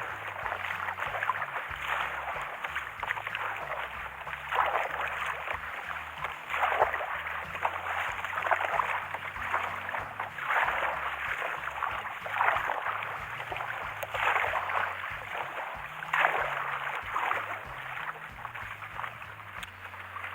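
Water splashing and sloshing around a kayak on the sea, in swells about every two seconds, with a low rumble underneath.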